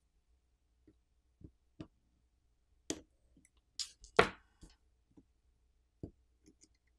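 Sparse light clicks and taps, about one a second, as a pry tool and fingers unclip the coaxial antenna cables from a OnePlus 10 Pro's main board. The sharpest click comes about four seconds in.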